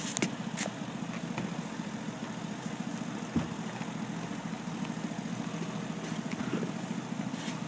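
Engine idling steadily, with a few faint clicks and one light knock about three and a half seconds in.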